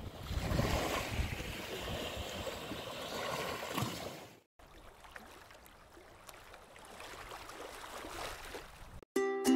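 Small waves washing up and swishing over a sandy shoreline, cutting off abruptly about four and a half seconds in. A much fainter steady hiss follows, and plucked ukulele music starts near the end.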